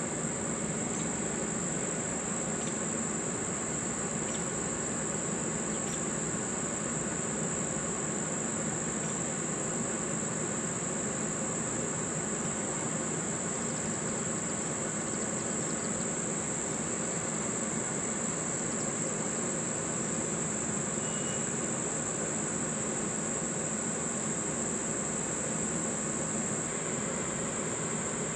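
Singing insects making a steady, unbroken high-pitched drone, over a low, even background hum.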